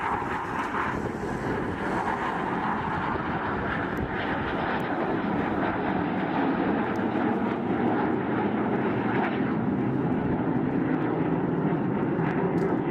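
Jet aircraft engine noise from a flying display: a continuous rushing sound whose main weight sinks lower in pitch over the second half.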